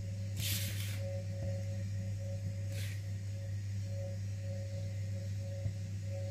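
Knife cutting down through a crumb-coated layered cake: two short scraping sounds, one about half a second in and a shorter one near three seconds. Soft sustained background music with a steady low hum plays underneath.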